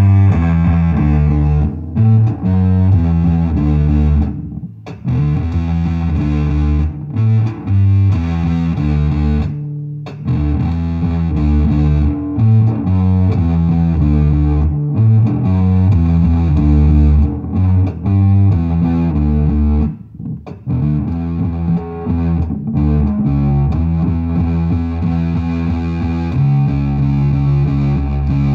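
Distorted electric bass line played through effects pedals, the notes changing in a steady rhythm, with a few brief breaks.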